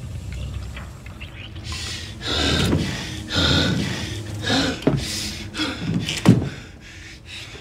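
A person breathing hard, with several heavy gasping breaths, and a short sharp knock a little past six seconds in. A low rumble fades away at the start.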